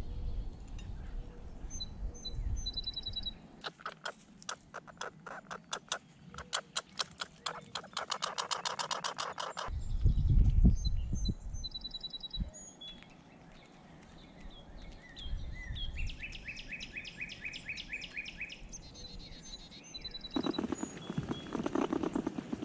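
Wild birds chirping and calling, with a run of rapid sharp taps a few seconds in and a brief low rumble near the middle. Near the end the sound turns to a denser, louder scratchy noise.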